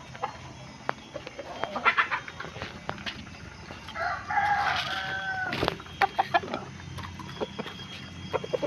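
Free-range chickens clucking, with a rooster crowing in one long call about four seconds in.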